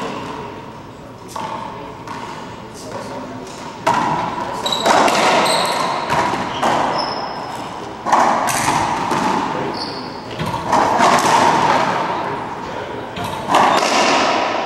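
Racquetball rally: the ball cracks off racquets and court walls several times, each hit ringing on in the enclosed court, with short sneaker squeaks on the hardwood floor in between.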